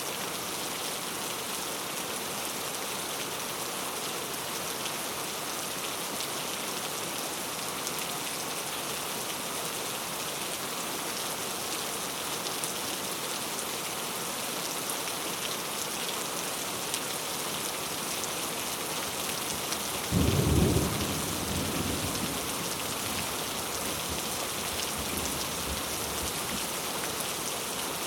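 Heavy rain falling steadily, with a clap of thunder about two-thirds of the way through that rumbles loudly for about a second and then trails off.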